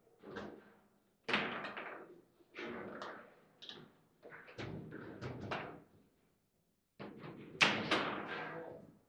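Foosball table in play: the ball and the rod-mounted figures knocking and clacking in quick clusters of sharp hits, with a short pause a little past the middle and the loudest hits near the end.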